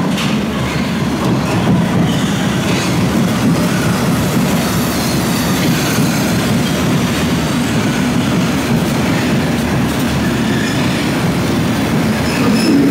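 London Underground S Stock train running into an underground platform: a loud, steady rumble of wheels on rail, with brief high wheel squeal.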